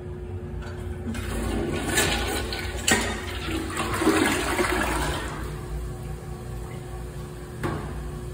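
Toilet flushing: a rush of water that builds about a second in, is loudest in the middle, then eases to a quieter steady flow. A sharp click sounds partway through.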